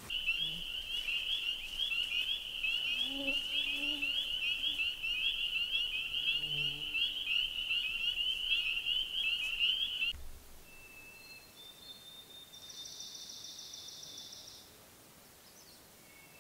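A dense chorus of frogs, a constant high-pitched peeping of many overlapping calls, which cuts off suddenly about ten seconds in. Faint bird calls follow, among them one short buzzy trill.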